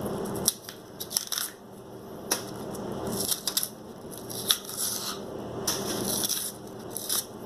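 Tough skin of a green plantain being peeled off by hand, giving irregular short scratchy tearing sounds with a few sharp snaps.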